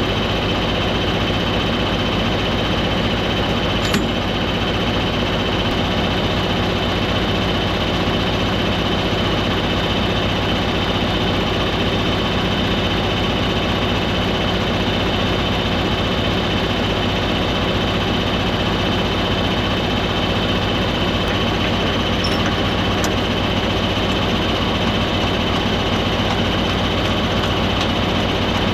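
Farm vehicle's engine running steadily at an even speed throughout, with one brief click about four seconds in.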